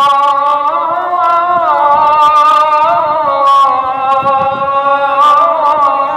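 A single voice chanting in long held notes, with ornamented turns where the pitch slides up and down.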